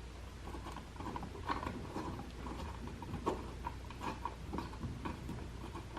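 Small irregular clicks and scrapes of hand tools working on a wall light switch.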